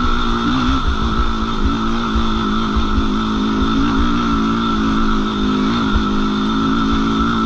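Suzuki LT-R450 quad's single-cylinder four-stroke engine running hard at a near-steady speed, with only slight rises and dips in pitch. Wind buffets the microphone with an uneven low rumble.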